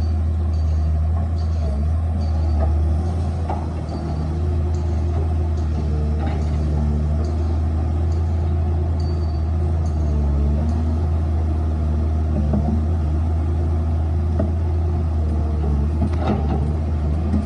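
Excavator's diesel engine running steadily with a deep, even hum.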